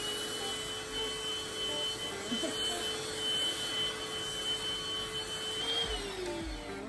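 Deerma cordless handheld vacuum cleaner running with a steady whine as it is worked over a bedsheet, then switched off near the end, its pitch falling away as the motor spins down.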